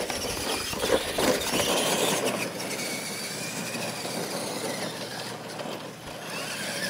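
Two radio-controlled monster trucks racing over dirt, their electric motors and gears whining, the pitch rising and falling with the throttle. The loudest moment comes about a second in, as they launch.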